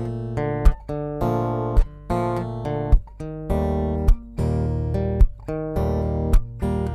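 Ibanez Concord acoustic guitar, plugged in through its Cherub GT-4 preamp, playing strummed chords with a sharp accent about once a second.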